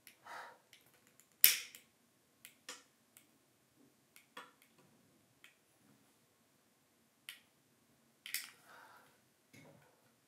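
A series of irregular sharp clicks and snaps, the loudest about a second and a half in, with another strong snap about eight seconds in that trails off in a brief hiss.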